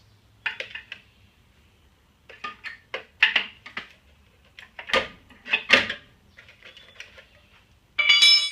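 A car wheel's hubcap being prised off: a string of sharp metallic clicks and knocks, ending in a ringing metal clatter about eight seconds in.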